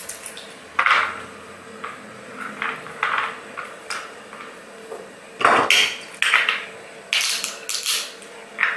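Hand-held metal nutcracker cracking walnuts: a string of sharp cracks and metallic clinks at irregular intervals, coming more often in the second half.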